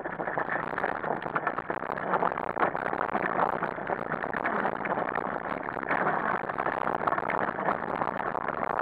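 Wheels of a dog-drawn rig rolling fast over a rough dirt trail, a steady crackling rumble of tyres on the ground, with frame rattle and many small knocks.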